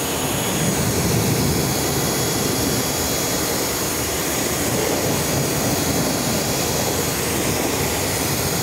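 Pressure washer running, its jet rinsing a car wheel and tyre: a steady spray hiss with a thin, steady high whine over it.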